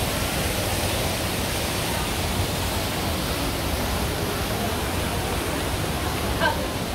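Steady, even rushing noise across all pitches, with faint voices briefly near the end.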